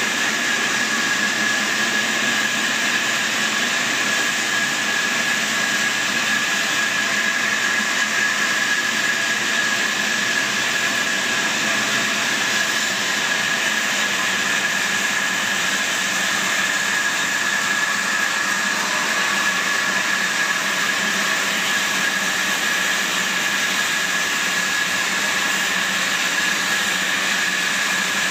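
Large log band saw running and cutting lengthwise through a big log. It makes a steady high whine over a constant hiss, with no change in pitch or level.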